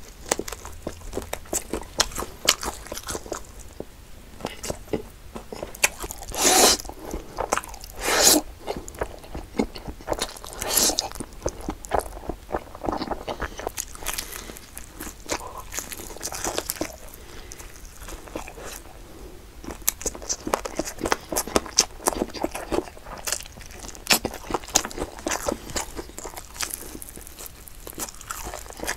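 Close-miked biting and chewing of crispy-skinned, sweet-salty glazed fried chicken wings: a steady run of crunches and small clicks, with a few louder bites about six and eight seconds in.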